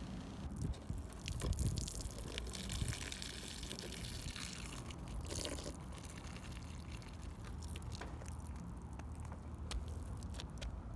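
Small liquid sounds, drips and trickling, with scattered light clicks of handling and a short hiss about four to five seconds in.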